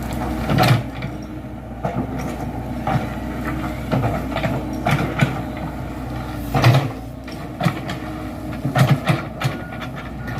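Komatsu PC78 excavator's diesel engine running steadily under load, with repeated metallic clanks and knocks from the working machine about once a second. The loudest knock comes about two-thirds of the way through.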